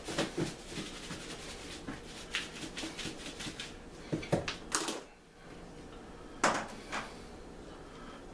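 A piece of chicken being shaken in a lidded plastic tub of seasoned flour: a quick run of rattling knocks for about three and a half seconds, then a few separate knocks as the tub and tongs are handled.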